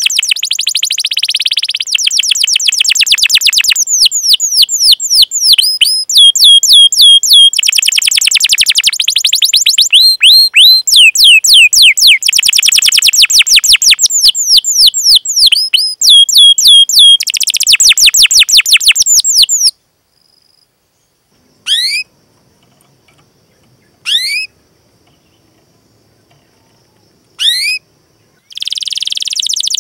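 Domestic canary singing fast, tightly packed rolling trills of quick chirps. About twenty seconds in the song breaks off, leaving three single rising chirps a couple of seconds apart, and the rapid trilling starts again near the end.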